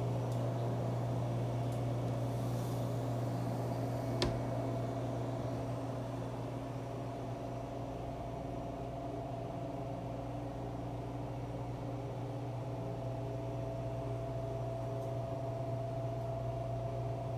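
Steady hum of a refrigerated display cooler's compressor and fans, with one sharp click about four seconds in.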